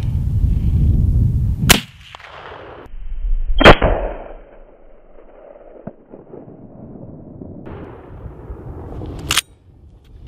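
Shots from a .45-70 lever-action rifle, a Cimarron Model 71: a sharp crack about two seconds in, the loudest shot about three and a half seconds in with an echo trailing off, and another crack near the end. A low rumble runs under the first two seconds.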